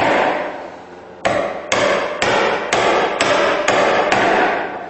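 Chisel struck repeatedly to pare a pine tenon's shoulder down to a scribed knife line: after about a second's pause, seven sharp blows at roughly two a second, each with a short ring.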